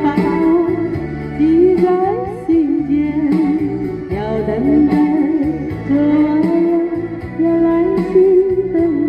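A woman singing a slow melody into a handheld microphone, holding long notes with vibrato, over a recorded instrumental backing track.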